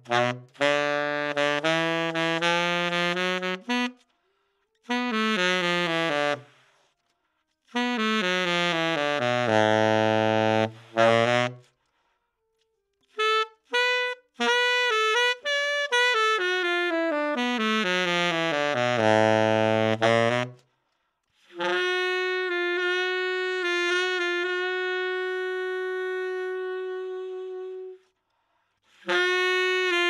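Solo tenor saxophone played through a 3D-printed Desert Blush v0.4 mouthpiece: short phrases with pauses between them, several running down into the horn's lowest notes, then one long held note near the end.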